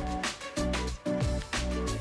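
Background music with a steady beat, bass and pitched instruments.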